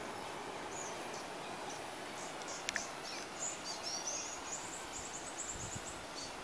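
Outdoor ambience of a tropical garden: a steady background hiss with short, high-pitched chirping calls scattered throughout and a quick run of them from about three and a half to five and a half seconds in. A single sharp click about two and a half seconds in is the loudest sound.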